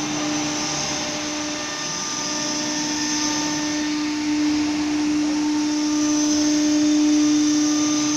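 Furniture-panel CNC machining center running: a steady whine over an even rushing noise, growing slightly louder about halfway through.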